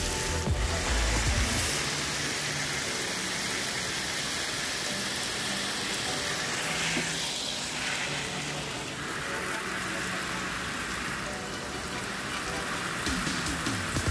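Steady hiss of spraying water, with background music underneath.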